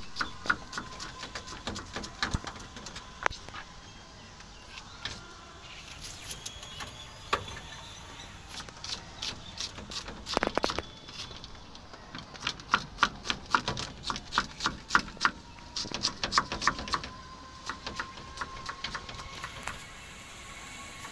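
Kitchen knife chopping small red onions on a wooden board: runs of quick, sharp taps, fastest and densest in a burst about halfway through, with short pauses between runs.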